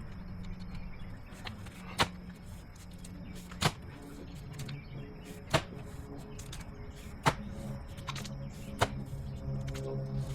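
Pickaxe striking into a trench bottom of packed clay and rock: five sharp strikes, one about every second and three-quarters.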